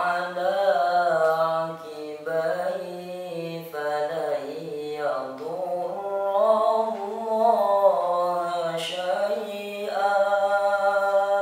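A boy reciting the Quran in melodic tilawah style, solo and unaccompanied: long held notes that bend and ornament in pitch, ending on a long steady note that stops near the end.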